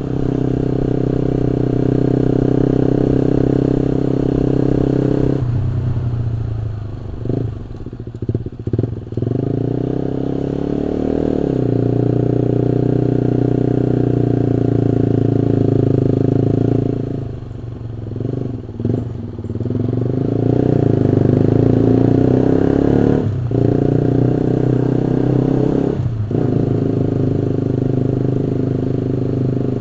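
Honda CB150R's single-cylinder engine running at a steady road speed, heard from the rider's seat. It eases off twice for a few seconds, about 5 and 17 seconds in, and the drive dips briefly twice more near the end.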